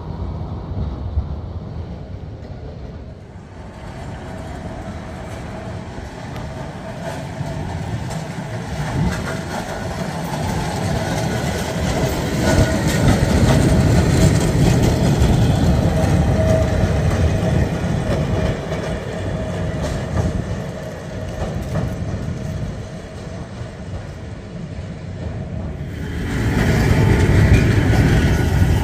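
ATM Class 1500 tram running on its rails, with wheels rattling over the track and a steady whine over the rumble. It grows louder over the first dozen seconds, then eases off, and the sound changes abruptly near the end.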